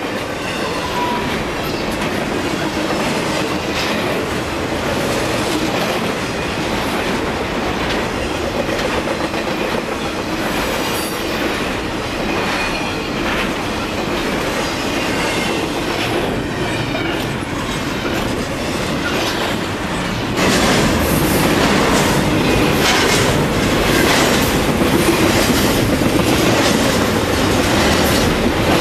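Intermodal freight cars of a long train rolling past at speed, steel wheels clacking over rail joints in a steady rush of rail noise. About two-thirds of the way through, the sound becomes louder and closer.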